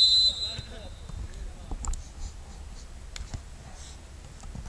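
A referee's whistle for the kickoff: a single high, steady blast that cuts off just after the start. Then come faint shouts from players and a couple of sharp knocks from the football being kicked.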